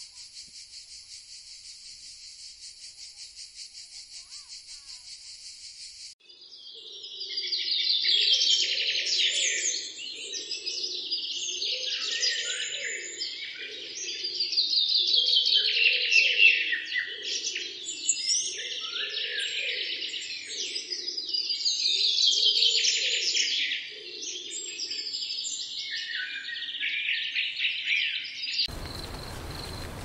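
A steady, fast-pulsing high insect trill that cuts off abruptly about six seconds in. It is followed by loud, busy bird song in repeating phrases of a few seconds each.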